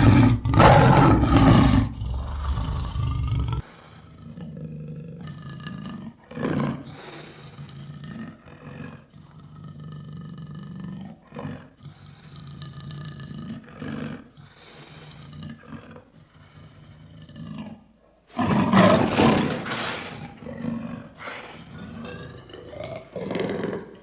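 Lion roaring: a loud roar at the start, then a run of shorter, quieter calls, then another loud roar about three-quarters of the way through.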